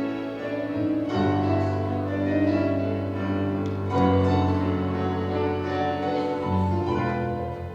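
Instrumental music from the show's accompaniment after the song's last sung line: keyboard playing held chords over a steady bass.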